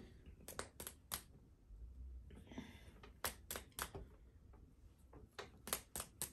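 Faint clicks and taps from hands moving at a table, coming in small clusters of quick ticks about half a second in, a little after three seconds and again near the end.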